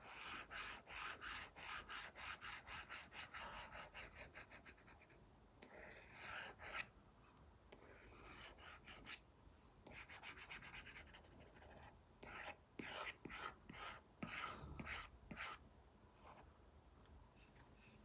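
Apple Pencil Pro tip scratching across an iPad's paper-like matte screen film in quick back-and-forth strokes, about three or four a second, in short runs with pauses between, then a few separate strokes.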